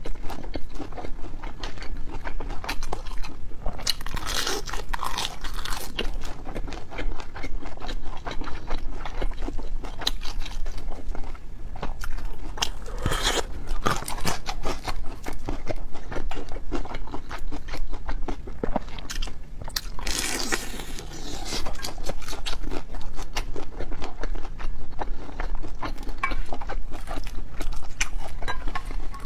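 Close-miked eating: continuous chewing and crunching with many crisp clicks, and louder crunches about four seconds in, near the middle, and about two-thirds of the way through.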